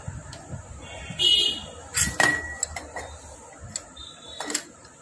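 Metal tools and engine parts clinking and scraping during hand assembly of a Honda Shine motorcycle engine: a short ringing scrape about a second in, then sharp metallic clicks with a brief ring around two seconds in, and a lighter click near the end.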